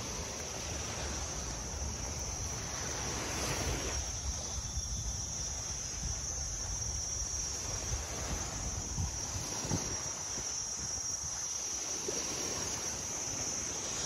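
Steady high-pitched insect buzzing, with a low rumble of wind on the microphone.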